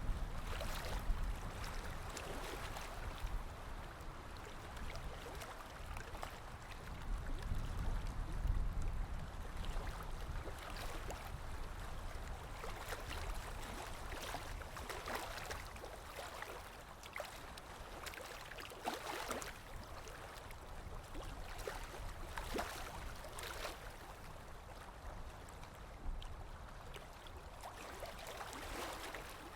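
Waves washing and lapping, a steady wash of water broken by irregular splashes, with a deeper swell about a quarter of the way in.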